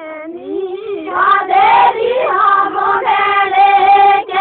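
Girls and young women singing a song together, unaccompanied. One voice carries the line at first, more voices join about a second in, and the singing stops just at the end.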